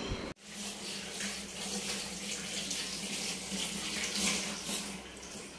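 Water running from a tap, a steady hiss with a low steady hum beneath. It starts after a short break about a third of a second in and eases off near the end.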